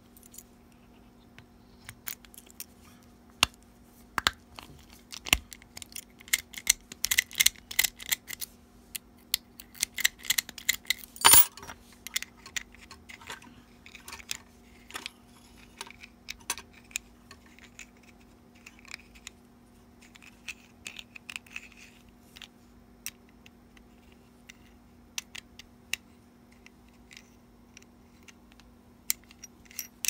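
Small metal clicks, taps and scrapes of a truck ignition lock cylinder and its metal switch housing being handled and fitted together, with a key ring jangling now and then. The clicks come irregularly, thickest in the first half with the loudest about eleven seconds in, and sparser later.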